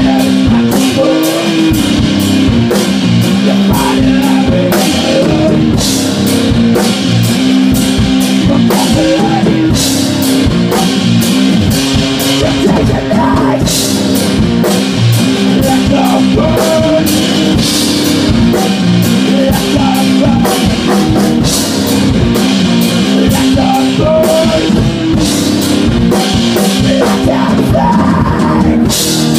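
A rock band playing loud together: drum kit beating a steady rhythm under electric guitar, with a singer's voice through a microphone.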